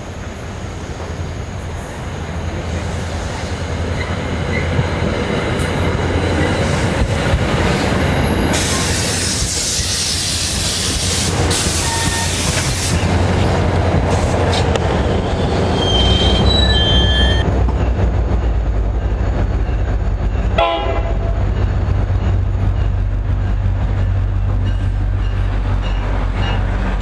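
NJ Transit diesel-hauled commuter trains passing close by a platform: coaches rolling on steel rails with a loud, steady rumble and brief high wheel squeals. A GP40PH-2 diesel locomotive's engine drones low under it as the locomotive approaches on the next track.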